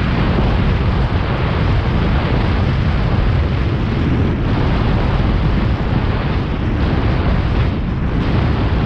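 Wind buffeting the microphone while riding a bicycle at speed: a loud, steady rumbling roar with no let-up.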